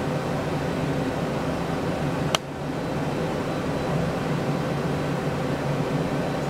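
Okuma Howa 2SP-V55 vertical CNC lathe running with a steady mechanical hum made of several low tones while its turret ram travels upward. A single sharp click comes a little over two seconds in, and the hum dips briefly right after it.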